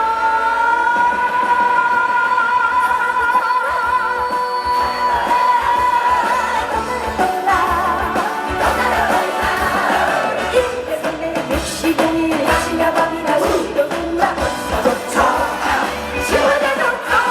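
A woman singing a trot song over backing music, holding one long note for the first six seconds or so before the melody moves on.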